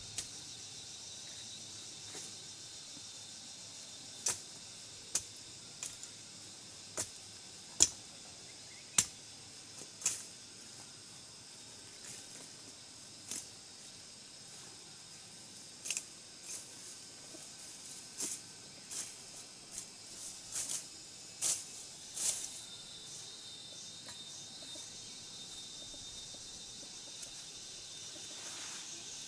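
Undergrowth being pulled up and broken by hand: a scattered series of sharp snaps and rustles, over a steady high hum of insects.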